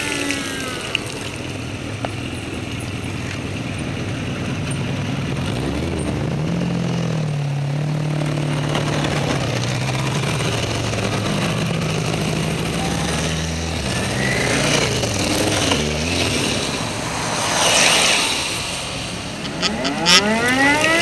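Motorcycle engine on a wet road: the revs fall as it slows, it runs at low, steady revs through the middle, and the pitch climbs again as it accelerates near the end, over constant road and tyre noise.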